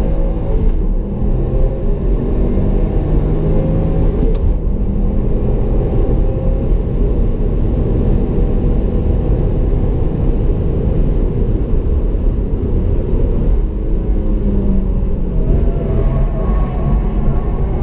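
2016 Subaru WRX STI's 2.5-litre turbocharged boxer four-cylinder driven hard, heard from inside the cabin along with road rumble. The engine note shifts near the end.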